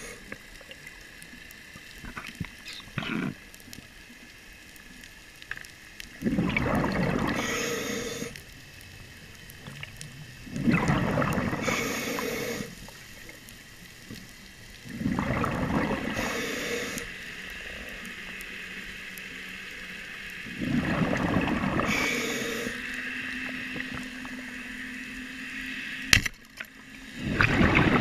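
Scuba diver breathing through a regulator, heard underwater: a loud rush of exhaled bubbles about every four to five seconds, with quieter inhaling hiss between. Near the end comes a single sharp snap, the band-powered speargun firing.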